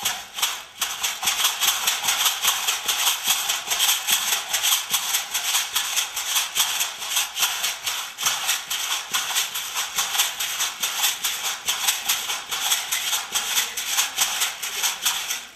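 Leg rattles made of condensed milk cans, worn by stomp-dance shell shakers and rattling with each step in a steady, quick rhythm. It is the shell-shaking percussion heard on its own, without singing.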